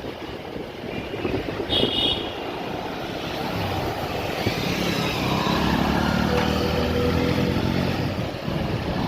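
Street traffic: vehicle engines passing, with a short high-pitched horn beep about two seconds in. A louder engine goes by in the second half.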